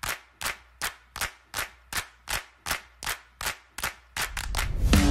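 Intro of a rock song: a steady, sharp percussive beat of about two and a half hits a second with nothing else under it. Near the end a swell rises and the full band with guitars comes in.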